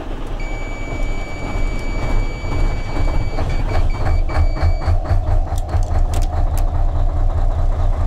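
Mercedes-Benz Actros 1843's V6 diesel idling with a low, evenly pulsing rumble just after it has been started, on its first run after standing a long time. A steady high-pitched warning beep sounds for about three seconds, then breaks into short beeps and stops about five seconds in; a few sharp clicks come near the middle.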